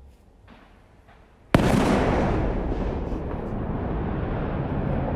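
Explosive demolition charges detonate at the base of a tall power-station chimney: a sudden sharp blast about one and a half seconds in, then a long, loud rumble that carries on.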